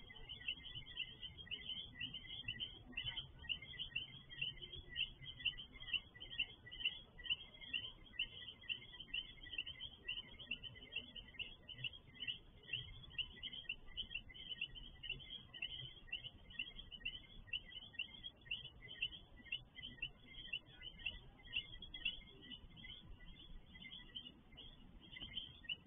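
Night-time chorus of small animals calling: many short, high chirps overlapping continuously, several each second, over a faint low background rumble.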